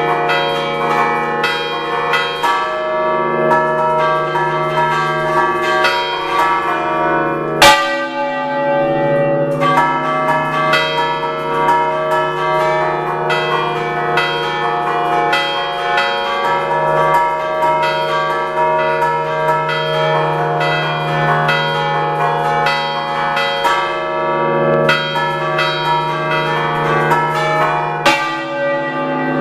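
Six-bell church bell concerto in D (RE3), cast by the Picasso foundry, rung by hand in the Ligurian 'a ducale' style: the clappers strike the bells in quick overlapping patterns and the tones hang over one another. It is heard close up inside the belfry, with one especially sharp, loud stroke a little under eight seconds in.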